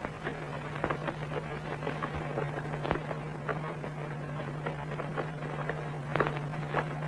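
Footsteps of two people climbing a stone staircase: irregular sharp steps, a few louder ones about six seconds in, over a steady low hum.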